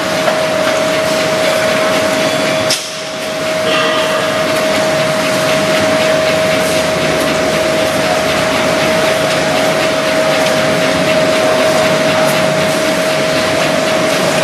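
Pipe wrapping machine running: a steady mechanical clatter and hiss under a constant whine, dipping briefly nearly three seconds in.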